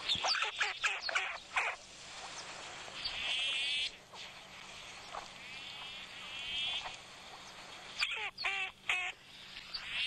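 Recorded calls of a red-billed teal played back: short, raspy, Daffy Duck-like calls, a cluster of them in the first two seconds and another about eight seconds in, with a wavy buzzing between them.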